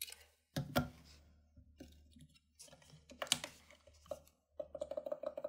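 Scattered small clicks and knocks of a smartphone and tools being handled on a work surface, with a quick run of ticks near the end.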